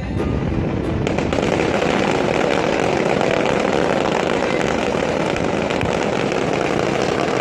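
Fireworks and firecrackers going off in a dense, unbroken barrage of rapid crackles and bangs, thickening about a second in.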